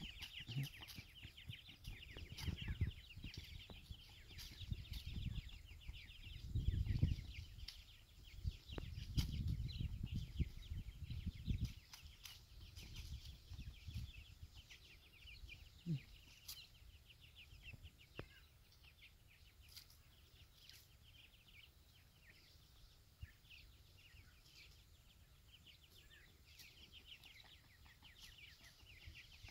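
Young grey francolins making many quick, high, soft chirps as they forage together, densest in the first half and thinning later. Low rumbling comes and goes under the chirps during the first twelve seconds.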